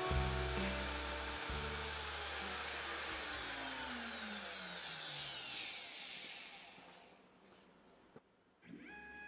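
CNC router spindle (a handheld-style wood router) spinning down after being switched off at the end of a V-carve cut. Its whine falls steadily in pitch and fades over about six seconds. A single click comes near the end, and a faint steady hum follows it.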